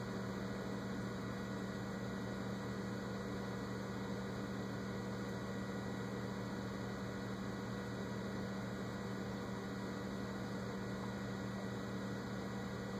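Steady low electrical mains hum with faint hiss, unchanging throughout.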